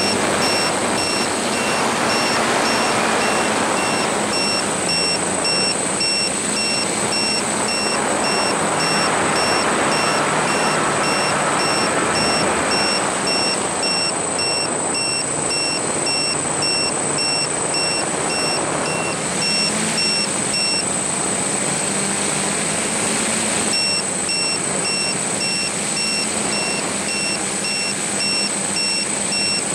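A remote-controlled aircraft in flight, heard from its onboard camera: the motors and propellers make a steady whir with a constant high whine. A beep repeats about twice a second, stops for a few seconds past the middle, then starts again.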